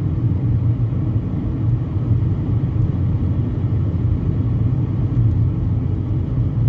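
Steady low rumble of tyre, road and engine noise heard inside the cabin of a car driving at highway speed.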